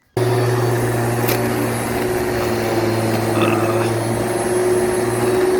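Lawn mower engine running steadily at a constant pitch, cutting in abruptly right at the start.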